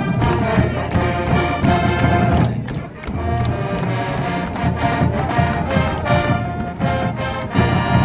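Marching band playing: sustained brass chords over marching percussion with regular drum strikes, the music dropping back briefly just under three seconds in before coming back full.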